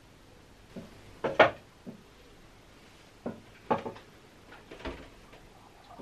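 Household objects being handled and set down, making a series of short knocks. The loudest comes about a second and a half in, with more knocks between about three and five seconds in.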